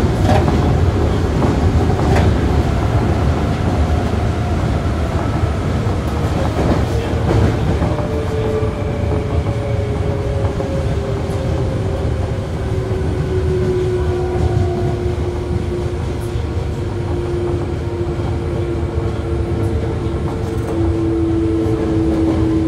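Onboard running sound of a Toei Asakusa Line 5300 series subway train, heard from above its VVVF inverter: a steady low rumble of wheels on rail, with a thin motor whine that falls slowly and steadily in pitch from about a third of the way in.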